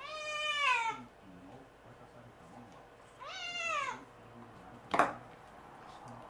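Tortoiseshell kitten meowing to beg for food: two long meows about three seconds apart, each falling in pitch at the end. About five seconds in comes a single sharp knock, the loudest sound.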